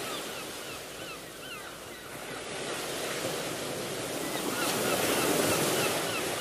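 Steady rushing noise like ocean surf, slowly getting louder, with runs of short chirping calls about a second in and again past the middle.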